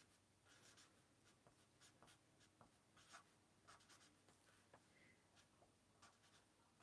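Very faint handwriting: short, irregular scratching strokes of writing by hand.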